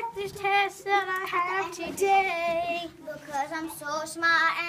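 A child singing a pop-style song melody in phrases, the held notes wavering in pitch, with short breaks between lines.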